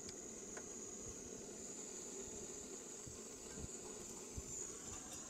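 Crickets chirping in a steady high-pitched trill, with a few faint knocks near the end.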